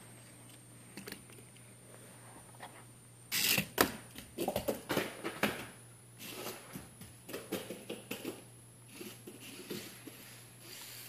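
Light clicks and knocks from handling and movement: a loud cluster about three seconds in, then a scattered run of smaller knocks. Under them is a faint, steady high-pitched whine that slowly rises in pitch.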